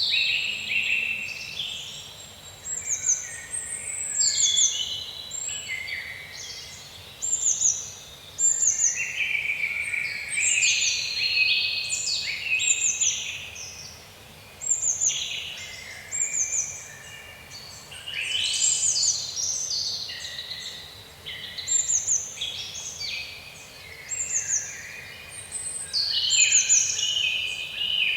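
Songbirds chirping and singing, with many short, high, falling calls overlapping one another throughout.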